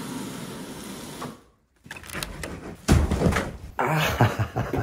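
A dull thud of a head knocking into the edge of a door about three seconds in, amid rustling and handling knocks.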